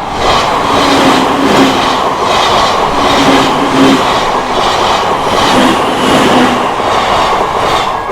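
Odakyu Odawara Line electric train passing close by over a level crossing: a loud, steady rush of wheels on rail with a regular clickety-clack about twice a second. It starts and stops suddenly.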